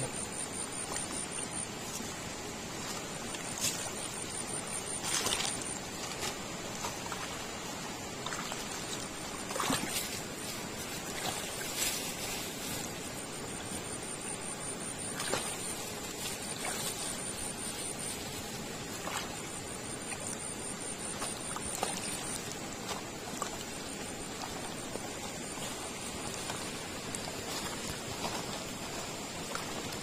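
Shallow mountain river flowing over stones, a steady rush of water, with a few brief clicks. A high-pitched pulsing buzz comes and goes in stretches of a second or two.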